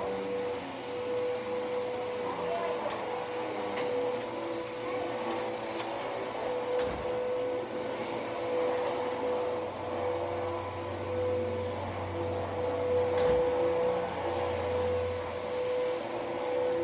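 Hoover vacuum cleaner running steadily, its motor giving a constant whine over a rush of air, with a deeper hum joining in for a few seconds past the middle.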